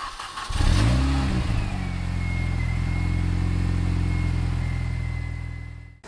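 Car engine revving: the revs rise and dip in the first second and a half, then hold steady with a thin, steady high whine over the engine note, fading away near the end.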